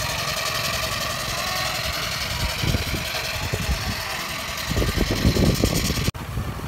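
Miniature live-steam traction engine running as it pulls a passenger trailer, with a quick even mechanical beat and some low thumps; the sound cuts off suddenly about six seconds in.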